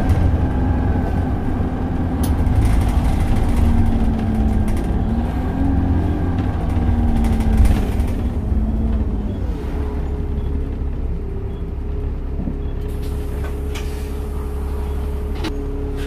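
Optare Solo SR bus heard from inside the saloon: the engine and drivetrain run with a low rumble, the pitch rising and falling, and a thump about halfway. After that the pitch drops and the sound settles into a steadier, slightly quieter hum.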